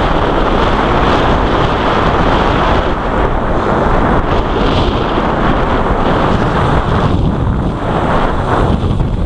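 Loud, steady wind noise buffeting the microphone of a camera on a bicycle descending a hill at high speed.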